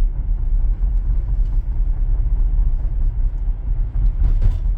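Tesla Model Y electric car driving on the road, heard from inside the cabin: a steady low rumble of tyre and road noise, with a brief rustle-like noise near the end.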